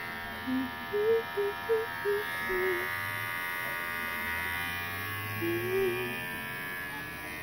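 Cordless electric pet clipper, the oneisall low-noise USB-rechargeable model, running with a steady buzz while it trims the fur on a dog's face.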